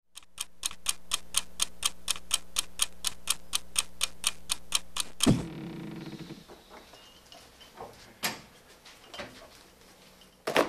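Rapid, even ticking like a clock, about four ticks a second, that stops with a single heavy thud about five seconds in; after it, only a few faint knocks.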